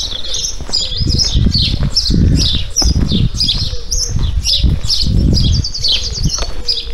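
Songbirds singing, a busy run of short chirps and gliding notes with a rapid trill near the end, over recurring low thumps.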